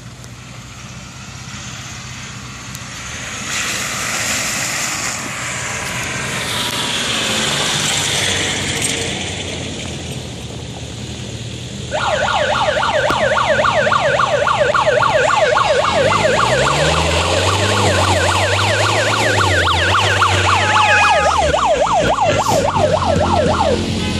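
Off-road 4x4s running along a dirt track. About halfway through an electronic siren cuts in, yelping rapidly up and down and stopping just before the end, while an engine revs up beneath it.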